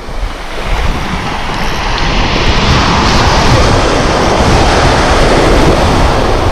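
Surf washing up and foaming over the beach, with wind buffeting the microphone; the rushing grows louder over the first few seconds and then holds.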